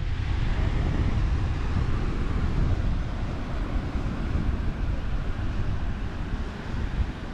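Wind buffeting the camera microphone: a steady low rumble with a hiss above it.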